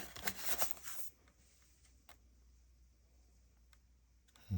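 Rustling handling noise, likely the product box being turned over, lasting about a second, then quiet with a couple of faint clicks and a short low thump near the end.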